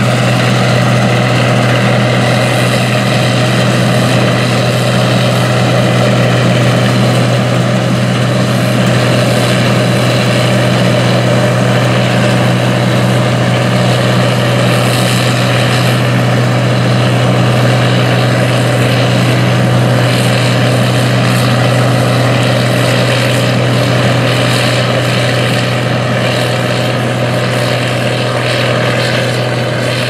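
Case International 1680 Axial-Flow combine harvesting soybeans: its diesel engine and threshing machinery run steadily under load with a deep hum, growing slightly fainter near the end as the combine moves away.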